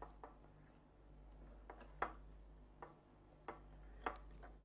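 Faint, irregular taps and clicks, about eight of them, as hands pat ground kaak crumbs onto a yoghurt-coated rolled turkey breast in a glass dish, over a low steady hum.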